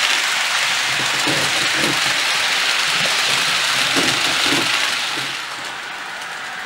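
Model LS Models CC 40101 electric locomotive with DCC sound hauling its coaches past, a steady hissing run of wheels on track and decoder locomotive sound, which drops away about five seconds in.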